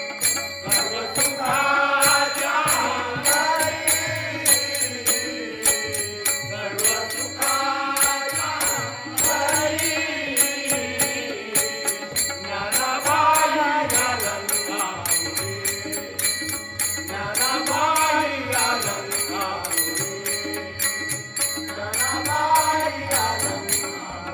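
Marathi devotional abhang sung in bhajan style: a melodic line rising and falling in phrases of a couple of seconds, over a steady rhythm of percussion clicks.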